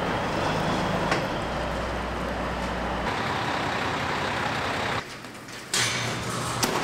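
Diesel semi truck running at idle: a steady engine rumble under a hiss. It drops away sharply about five seconds in and comes back briefly near the end.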